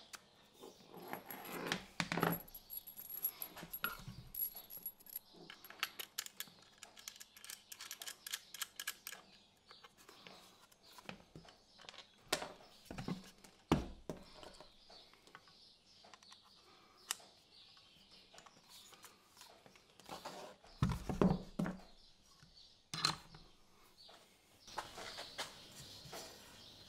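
Small clicks, clinks and rattles of handling: a soldering tip cartridge pushed into the iron's handle, and cable plugs and connectors fitted into a soldering station and its tool holder. There are a few louder knocks about halfway through and again about three quarters of the way through.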